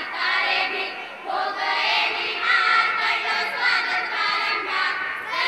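A group of schoolgirls singing together in chorus into a microphone.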